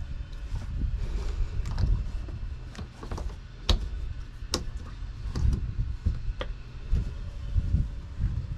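Microfiber towel rubbing and wiping over a boat's plastic helm console and switch panel, with a few sharp clicks about halfway through and a low rumble underneath.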